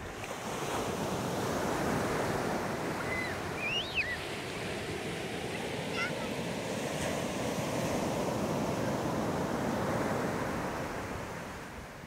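Ocean waves breaking and washing up a sandy beach. The surf swells in the first second, holds steady, and eases off near the end.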